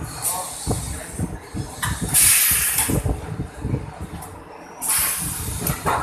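Pneumatic door-hinge assembly machine cycling: its air cylinders stroke with repeated knocks and clacks. Two bursts of air exhaust hiss come about two seconds in and again about five seconds in.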